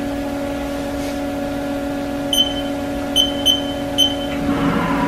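Steady hum of a Haas CNC mill running, with four short high beeps from its control panel's keys as they are pressed. Near the end a falling whine sets in.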